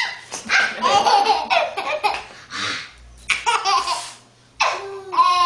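Laughter in short repeated bursts with pauses between them, a baby's laugh among it.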